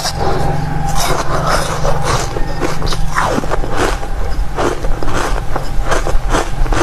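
Frozen basil-seed ice being bitten and chewed close to the microphone: a rapid, irregular run of sharp crunches and cracks.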